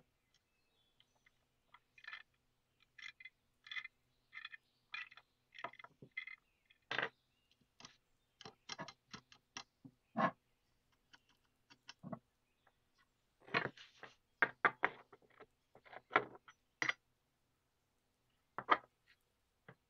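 Small metal parts of a bayonet handle being fitted and handled: about four seconds of light clicks at roughly one and a half a second, then scattered sharper taps and knocks of metal on a hard surface.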